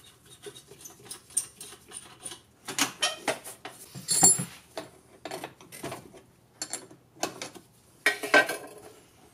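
Wrench and small metal hardware clinking and scraping as the cable nuts and bolts are worked off golf-cart battery terminals: an irregular run of light metallic clinks, the sharpest a ringing clink about four seconds in and a cluster near the end.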